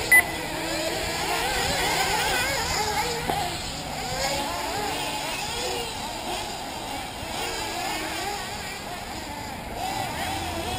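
Several 1/8-scale nitro off-road buggy engines revving up and down around the track, their high whines rising and falling over one another. A short loud beep sounds just after the start.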